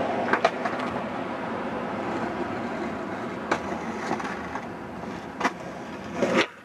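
Skateboard wheels rolling over pavement with a steady rumble, broken by several sharp clacks of the board, and a louder swell just before the sound cuts off suddenly near the end.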